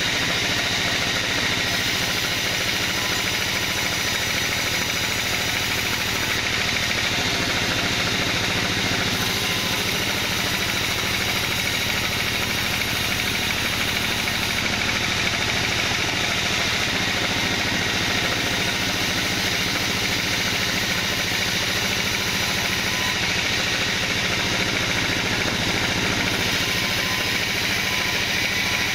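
Band sawmill running steadily, its blade cutting lengthwise through a kenanga log.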